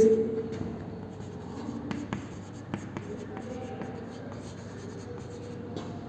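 Chalk writing on a chalkboard: faint scratching strokes with a few sharp taps as the chalk hits the board.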